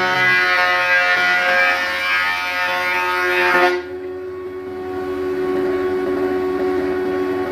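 Thickness planer planing a wooden board: a steady whine mixed with the noise of the cut. Just under four seconds in the cut stops suddenly as the board clears the cutterhead, and the machine runs on unloaded with a steady hum.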